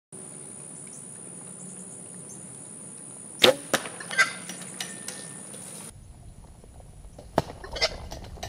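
Arrows shot from a bow at wild hogs: a sharp crack of the arrow striking about three and a half seconds in, followed by a few smaller knocks and scuffles as the hogs scramble away, then a second sharp crack about seven and a half seconds in. A steady high tone runs in the background.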